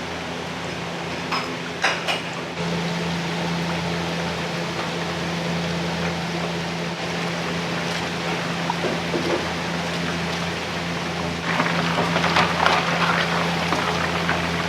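Restaurant kitchen cooking noise: a steady hum under a rushing hiss, turning louder and crackly about eleven seconds in.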